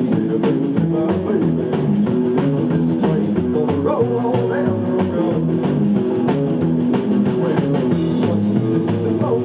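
Live rockabilly band playing: upright double bass, drum kit, electric guitar and acoustic guitar, with a steady driving beat.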